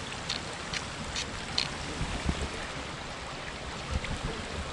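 Steady rushing of a partly frozen stream, with about four crisp crunches of footsteps on snow and ice in the first two seconds and a few dull thumps later on.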